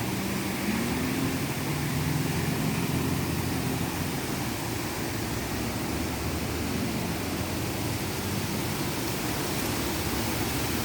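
Steady rushing background noise with a low hum, unbroken throughout, and faint pitched tones in the first few seconds.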